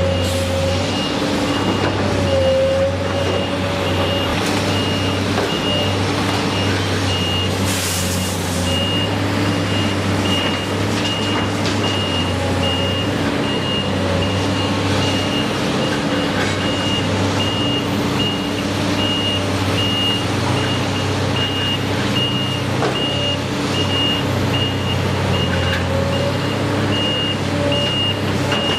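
Heavy truck or construction machine running with its reverse alarm beeping steadily at an even pace over the engine's hum. There is a brief hiss about eight seconds in.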